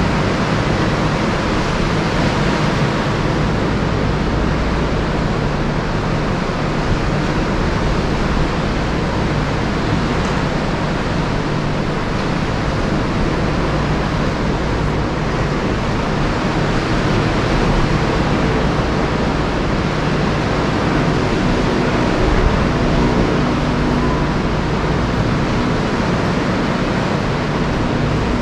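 Ocean surf and wind: a loud, steady, even rushing noise, with a low steady hum underneath.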